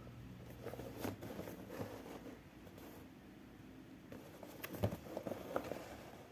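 Hands handling the kit's packaging and parts: scattered light clicks, taps and rustling, with a sharper knock a little under five seconds in.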